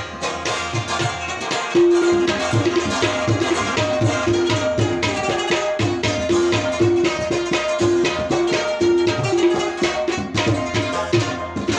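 Tabla and rubab playing an instrumental passage together: short plucked rubab notes over a steady, even tabla rhythm. Both get louder about two seconds in.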